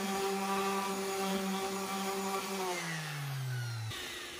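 Bosch random orbit sander with 220-grit paper running against the inside of a cast iron skillet, then switched off near the end and winding down, its hum falling in pitch until it stops.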